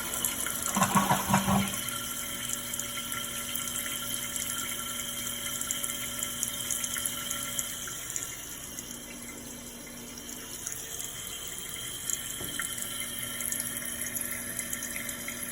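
Toilet flush ending with a short loud rush of water, then the tank refilling through a newly replaced fill valve: a steady hiss of water running in, with no whine or wheeze.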